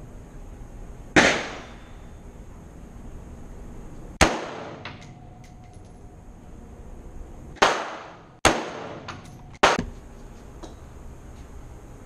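Five gunshots, each a sharp crack with a short fading echo: two a few seconds apart, then three in quicker succession near the end, with fainter pops between them.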